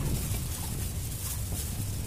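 Black plastic bag rustling and crinkling as a bag-covered hand squeezes and breaks up clumps of fermented rice bran, over a steady low rumble.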